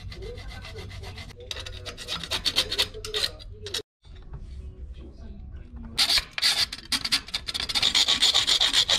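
Small hand hacksaw sawing back and forth through a bicycle frame tube: lighter scraping strokes at first, then, after a short break, fast, loud sawing strokes from about two-thirds of the way in. Between the two, a cloth rubs softly on the frame.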